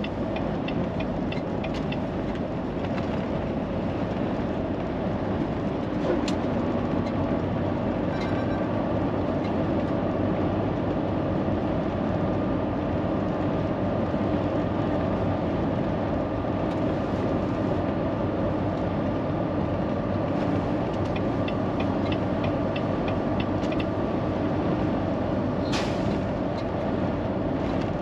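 Steady drone of a Volvo semi-truck's diesel engine and tyres, heard inside the cab while cruising at road speed, with a few steady whining tones over it. Short runs of light, regular ticking come in now and then, and a single click sounds near the end.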